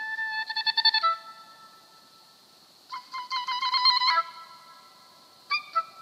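Oboe playing three short phrases of rapid, fluttering repeated notes. The first lasts about a second, the second a little over a second, starting near the middle, and the third is brief, near the end.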